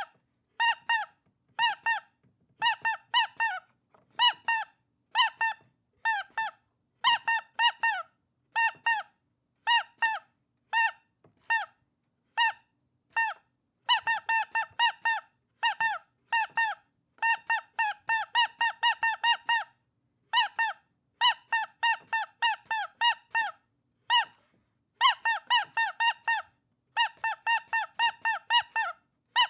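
Rubber duck squeaky toy squeezed over and over, giving short high squeaks in quick runs of two to five, with brief pauses between runs.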